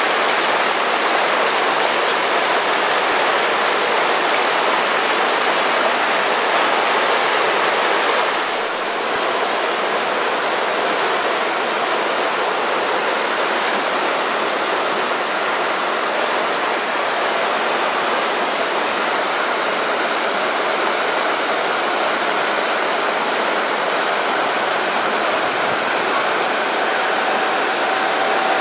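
Rapids of a rocky river in full flow, rushing loudly and evenly.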